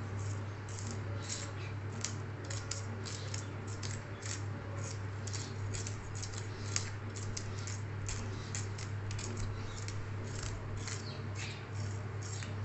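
A hilsa being scaled with a handheld metal fish scaler: quick repeated scraping strokes against the scales, about three a second, with a steady low hum underneath.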